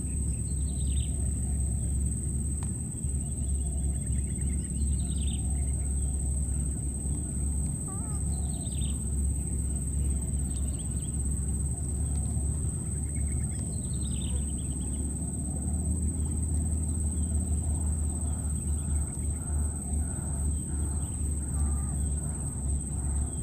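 Outdoor ambience with a steady low hum and a thin, steady high-pitched whine. Short, high, falling chirps come every few seconds.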